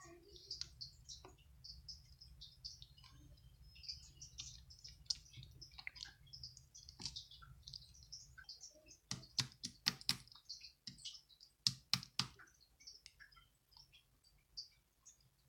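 Small birds chirping in quick short notes over a low background hum, with a run of sharp clicks or taps about two-thirds of the way through.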